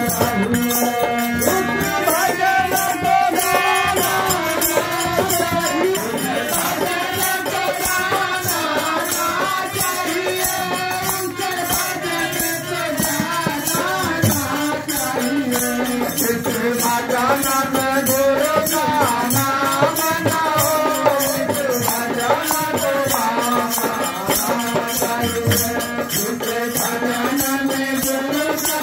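A man's voice singing a folk devotional song through a microphone and PA, over a steady beat of shaken rattle-like percussion.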